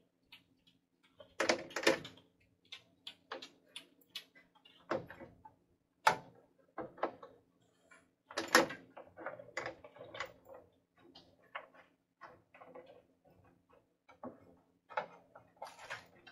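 Irregular clatter and knocks of metal roasting trays being handled, as cut broccoli is tipped from a small tray into a larger one. The loudest knocks come about two seconds in and again about eight and a half seconds in.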